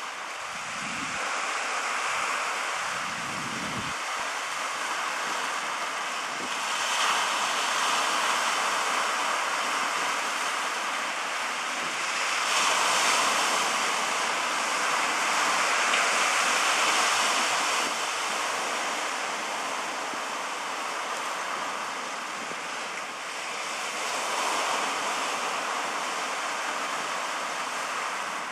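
Sea surf breaking and washing over a stony cobble beach, a steady rush that swells louder with each incoming wave, several times over.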